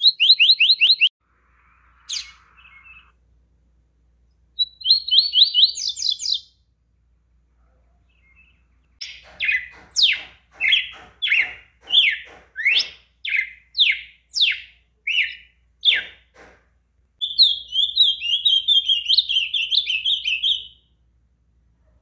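Songs of two Brazilian songbirds in turn: a yellow-bellied seedeater and a red-cowled cardinal (galo-de-campina). Short fast trilled phrases come first. From about nine seconds in there is a run of about a dozen loud downslurred whistled notes, and near the end a rapid twittering phrase.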